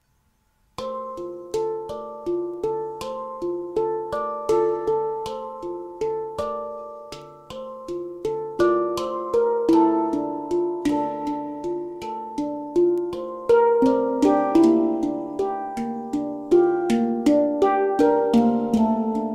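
Instrumental background music of struck, ringing pitched notes in a steady rhythm. It starts out of silence about a second in and grows fuller and louder about halfway through.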